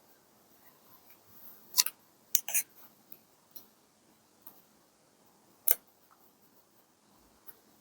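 Paper-crafting handling sounds on a desk: a few sharp clicks and snips, a cluster about two seconds in and a single one near six seconds, with quiet paper rustle between.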